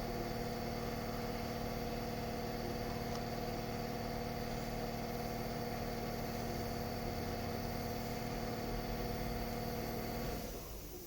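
Steady hum of a small electric motor or fan, holding several even tones, that cuts off suddenly near the end.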